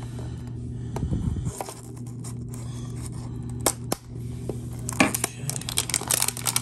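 Plastic shrink wrap on a small cardboard trading-card box being cut and picked open, with scraping and a few sharp clicks, then crinkling and tearing from about five seconds in as the wrap is peeled off. A steady low hum runs underneath.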